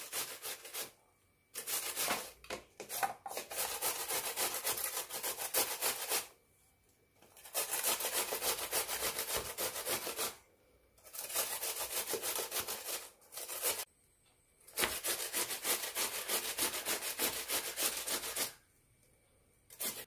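Peeled salad cucumber being grated on the coarse side of a stainless steel box grater: quick grating strokes in four runs of a few seconds each, with short pauses between.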